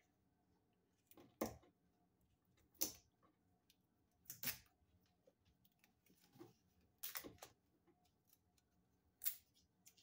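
Faint clicks and rustles of a wall light switch and its wires being handled by hand, about five small sharp sounds spread a second or two apart.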